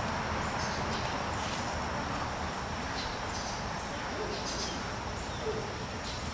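Steady outdoor background noise with a low rumble, with a few faint, brief high-pitched sounds about three and four and a half seconds in.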